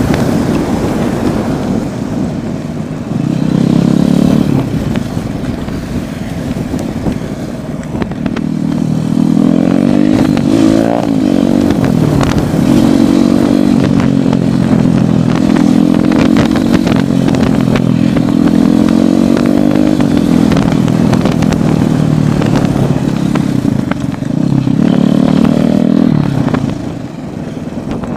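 Royal Enfield Thunderbird's single-cylinder engine running at road speed, its exhaust note rising and falling as the throttle is opened and eased off, with a few quieter stretches on a closed throttle, the last near the end.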